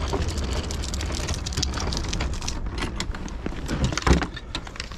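Loaded fishing cart rolling over concrete: a steady rumble from its wheels, with the gear on it rattling and clattering, and a louder knock about four seconds in.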